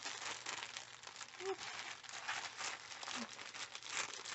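Packaging crinkling and rustling in irregular bursts as it is handled and pulled at to get it open.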